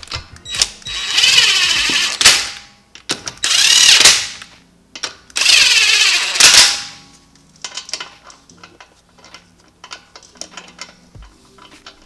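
Power tool run in three short bursts, spinning the wheel's lug nuts on lightly just to seat them before they are torqued by hand. Light clicks and rattles of the socket and nuts follow.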